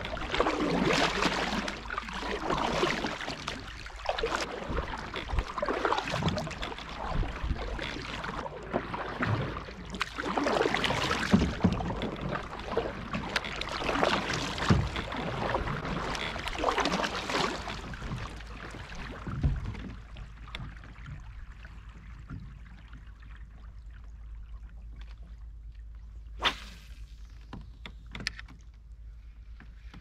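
Double-bladed kayak paddle strokes dipping and pulling through the water, roughly one every second or two, which stop about two-thirds of the way through. Then quieter water with a single sharp knock near the end, and a few small clicks after it.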